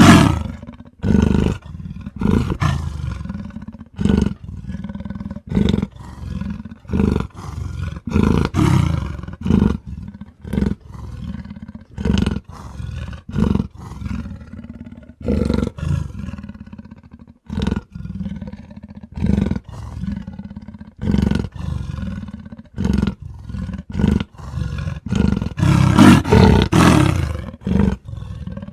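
Angry wolf growling and snarling in short, rapid, repeated bursts, about one and a half a second, with a louder, longer stretch near the end.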